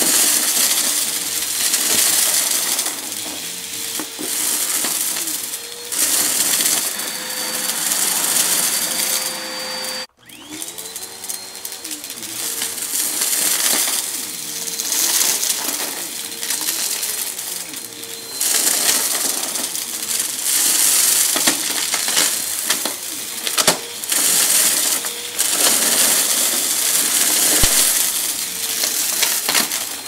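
Upright vacuum cleaner running with its motor whining steadily while it sucks up a pile of crushed debris, the pieces rattling and crunching as they go up the nozzle. The sound cuts out for an instant about ten seconds in.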